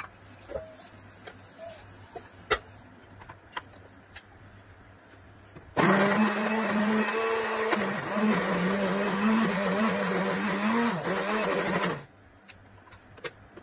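Electric kitchen blender running for about six seconds, starting and cutting off abruptly, its motor pitch dipping briefly a couple of times under load. Before it, a few light clicks and knocks.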